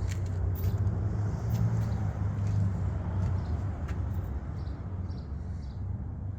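A motor vehicle's engine idling with a steady low hum, with a few faint light clicks over it.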